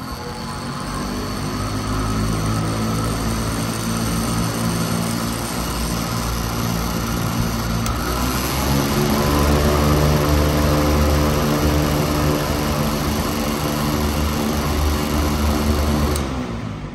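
1998 Patton U2-1887 high-velocity air circulator running, its motor hum and blade rush building up after a switch click. About eight seconds in another click brings a louder, stronger low hum as it changes speed. Near the end a click cuts the motor and the sound starts to die away as the blades coast down.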